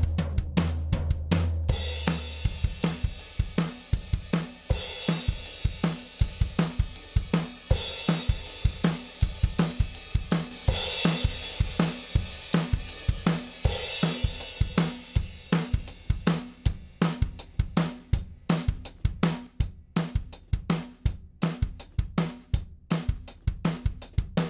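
Recorded drum kit playing a steady beat, with kick, snare and hi-hat and cymbal wash swelling every few seconds, played back through the Audient Black compressor as a demo of its compression.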